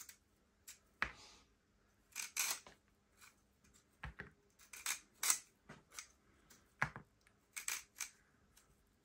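Handheld vegetable peeler shaving a raw carrot in short, sharp scraping strokes at uneven intervals, about a dozen of them.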